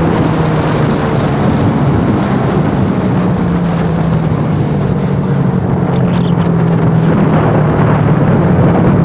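Stock Suzuki Raider 150's single-cylinder engine held at high revs on a top-speed run, with a steady note. Wind and road rush sit over it.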